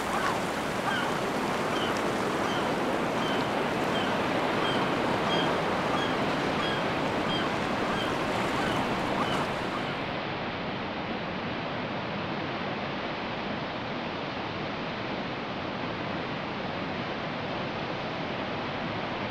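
Ocean surf washing onto a beach: a steady rushing noise. It turns slightly quieter and duller about ten seconds in. Over the first half a faint high peep repeats a little more often than once a second.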